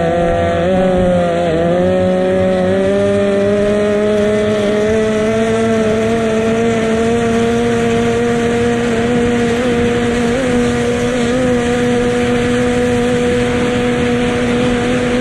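Racing powerboat engine running steadily; its pitch dips briefly near the start, then climbs slowly and holds level.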